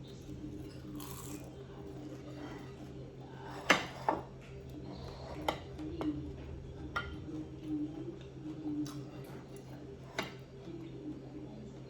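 Eating at a table: about half a dozen sharp clicks and clinks of food and utensils against a dish, the loudest a pair about a third of the way in, over a steady low hum.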